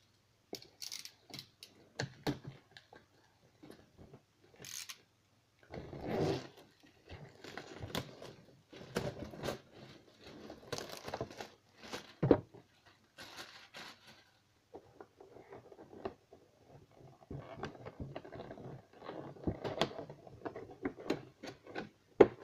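Cardboard retail box and its packaging being handled: irregular rustling and scraping with a few sharp knocks, the loudest about halfway through and just before the end.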